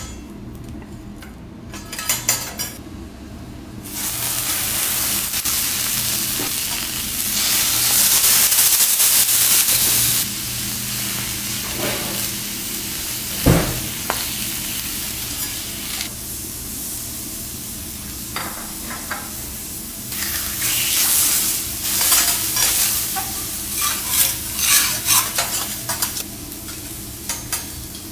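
Cuttlefish sizzling on a hot steel teppanyaki griddle. The hiss starts about four seconds in and is loudest a few seconds later. Metal spatulas scrape and clack on the griddle now and then, with one dull thump about halfway through.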